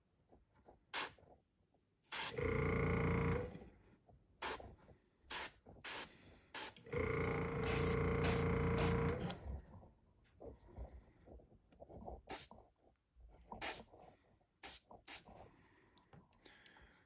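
Gravity-feed airbrush spraying red paint in two spells of a second or two each: a hiss of air over a steady hum, with short clicks in between.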